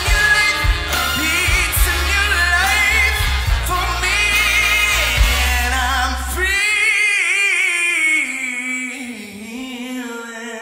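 Live big band with a singer. About two-thirds of the way in the band cuts out, leaving the singer on a long held note with vibrato that slides down in pitch and fades.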